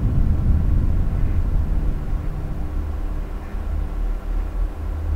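Low, steady rumbling drone with a faint hum of held tones above it: the designed engine-room ambience of a spaceship interior.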